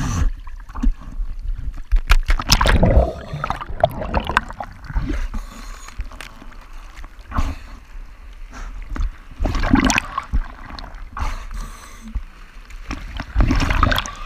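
Sea water sloshing and splashing around a half-submerged waterproof camera at the surface, coming in irregular surges with low rumbles.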